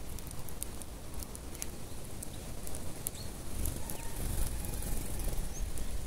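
Eurasian tree sparrows feeding on scattered seed: a scatter of quick, sharp ticks from pecking, with two brief high chirps, about three seconds in and near the end, over a low rumble.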